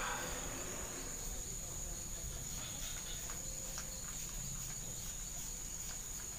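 Faint clicks and rustles of a Maguro Thor 8000 spinning reel being fitted into a fishing rod's reel seat, a few small clicks coming about three seconds in. A steady high-pitched whine runs underneath throughout.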